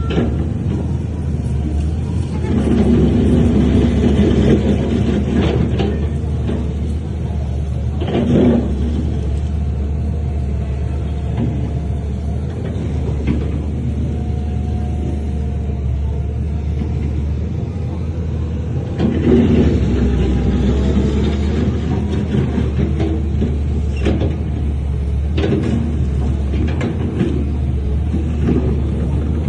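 Heavy diesel earthmoving machinery running steadily with a deep rumble, getting louder twice as it works harder, with occasional knocks and clanks.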